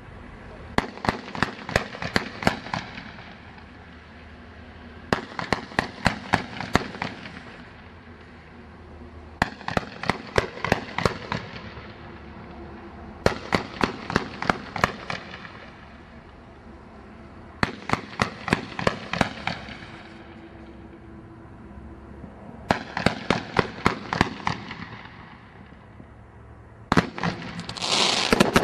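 Brothers Golden Eye 42-shot fan barrage firework firing in six volleys of about seven rapid bangs each, a volley every four seconds or so, then a louder, denser burst near the end.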